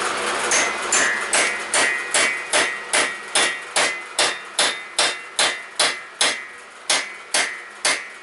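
Brass hammer tapping a valve-guide installer tool in about twenty evenly spaced blows, two or three a second, each with a short metallic ring, driving a new bronze valve guide into an air-cooled VW cylinder head.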